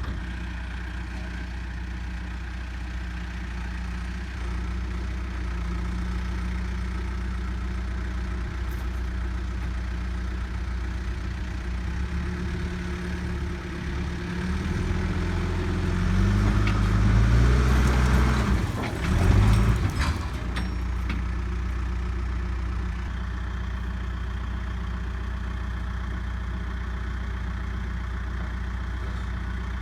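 Backhoe's diesel engine idling, then revving up under heavy load for several seconds around the middle as it shifts a full 40-foot shipping container on pipes, before dropping back to a steady idle.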